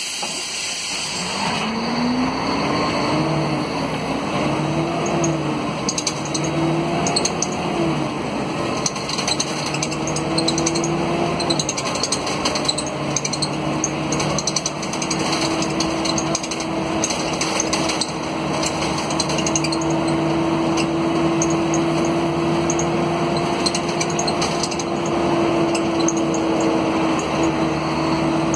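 Mercedes-Benz OM457LA turbo-diesel engine of an O500 UA articulated bus under hard acceleration, heard inside the cabin. Its note climbs and drops back about three times as the ZF Ecomat automatic gearbox shifts up, then holds a steady, slowly rising note.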